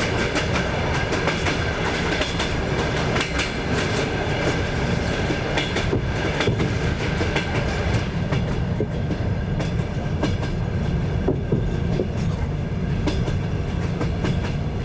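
Wheels of a moving passenger train clattering over the rails, heard from aboard: a steady low rumble with many sharp clicks and knocks.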